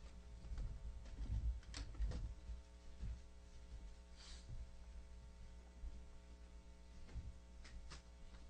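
Low room rumble with a faint steady electrical hum, and a few scattered knocks and clicks as people get up from a table and move around it.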